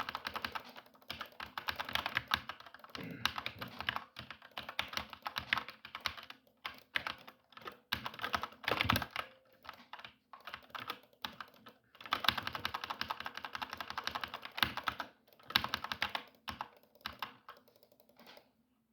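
Fast typing on a computer keyboard: rapid runs of key clicks broken by short pauses. It thins to a few scattered presses and stops near the end.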